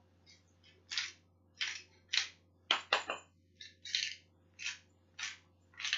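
Pepper grinder being twisted over a bowl, giving about ten short gritty crunches at roughly two a second.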